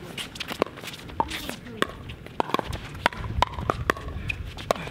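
Pickleball rally: paddles striking the plastic ball in a quick exchange, sharp pops about every half second, with shoes scuffing on the hard court.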